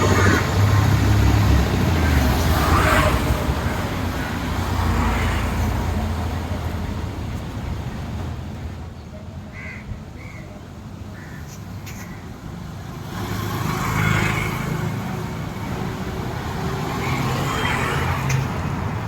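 Road traffic noise, vehicle engines swelling and fading as they pass, with a few short high chirps about ten seconds in.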